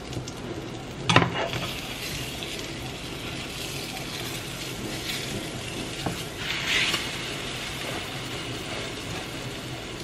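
Banana-and-egg pancake batter frying in butter in a pan with a steady sizzle. There is a sharp knock about a second in and smaller clatters around six to seven seconds.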